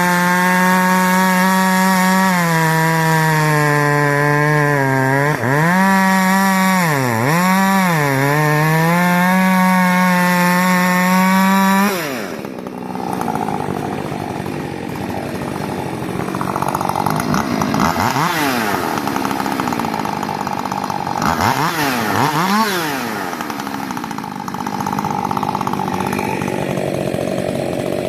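Rebuilt Husqvarna 562 XP two-stroke chainsaw running at full throttle in a cut, its pitch sagging a few times under load. About twelve seconds in it comes out of the cut and drops, then is blipped up and down several times.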